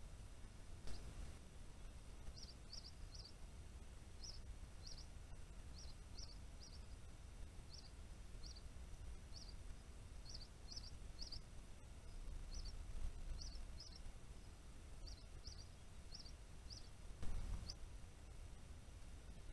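A small songbird giving a long series of short, high notes, some single and some in quick runs of two or three. There is a brief click about a second in and a louder thump near the end, over a low background rumble.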